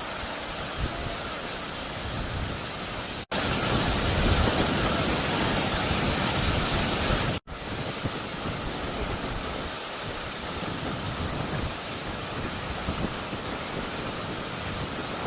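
Waterfall, a steady rush of falling water. About three seconds in, a sudden cut brings a louder, brighter stretch of the same rush for about four seconds, then another sudden cut back to the softer level.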